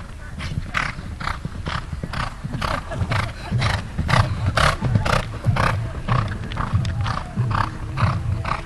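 A horse cantering on sand footing: a steady rhythm of hoofbeats, with breaths blown out in time with the strides. It is loudest about four to five seconds in, as the horse passes close.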